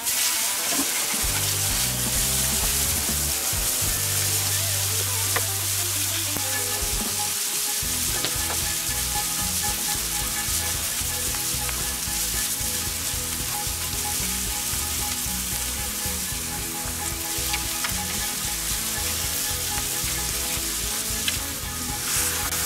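Beef burger patties frying on a hot fire-plate griddle, a steady sizzle.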